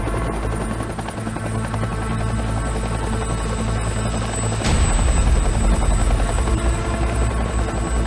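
Helicopter rotor chopping steadily under a music score. About halfway through there is a sudden hit, after which the low rumble grows louder.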